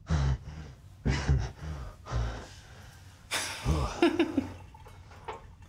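A person's breathing: a series of short, breathy vocal sounds about a second apart, some carrying a low voiced grunt.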